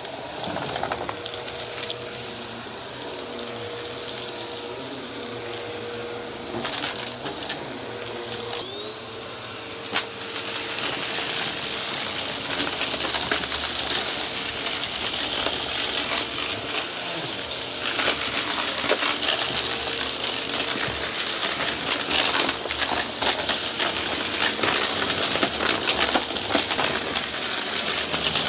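Upright vacuum cleaner running on carpet with its brushroll spinning and a steady motor hum; its pitch briefly dips and recovers about nine seconds in. From about ten seconds in it picks up scattered dry debris, which crunches and rattles through the nozzle in dense clicks, and the sound gets louder.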